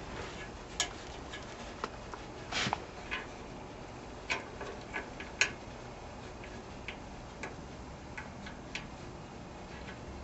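Faint, irregular small metallic clicks and taps as a nut and washer are worked by hand onto a new rectifier diode's stud inside an arc welder.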